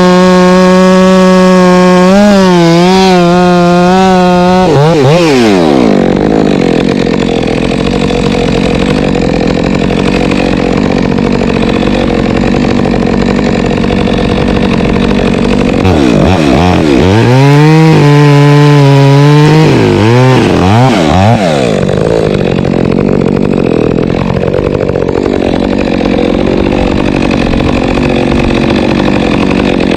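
Two-stroke chainsaw running at full throttle, falling off, then cutting into wood under load for about ten seconds. About halfway through it is revved up and down a few times out of the cut, then it goes back to cutting.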